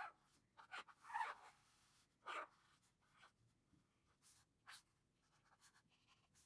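Tombow dual brush pen's brush tip drawn across paper in lettering strokes: faint short scratches, several close together in the first two and a half seconds, then a few sparser ones.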